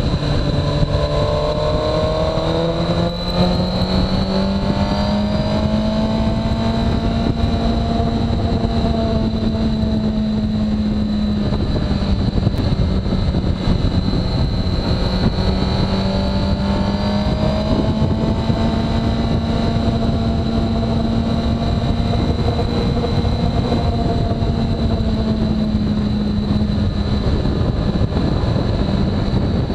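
Suzuki GSX-R1000R's inline-four engine running under way, its pitch climbing slowly, dipping about eleven seconds in, climbing again and dipping once more near the end.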